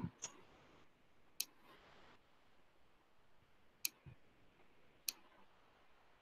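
A few faint, sharp clicks spaced a second or more apart against near silence, made by the computer input used to hand-write on an on-screen whiteboard.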